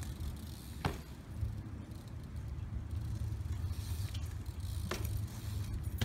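BMX bike rolling over concrete, with a steady low rumble and two brief squeaks that fall in pitch, about a second in and near the end.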